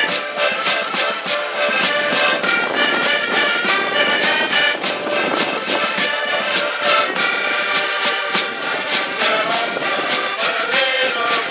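Portuguese folk band playing a lively instrumental tune on several button accordions, with a bass drum and a wooden scraper keeping a steady fast beat and a small guitar strummed along.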